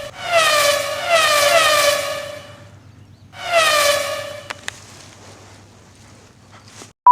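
Northern bobwhite calling at close range: a series of loud whistled calls, each sliding down in pitch, then two faint clicks.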